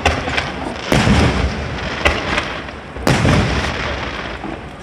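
Aerial firework shells bursting in quick succession: four booms about a second apart, each trailing off in a long echo.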